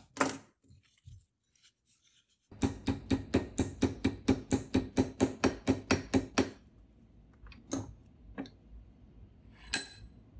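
Hammer tapping quickly on a brass strip clamped in a steel bench vise, about five even blows a second for some four seconds, after a single knock near the start. A few separate knocks and clicks follow near the end.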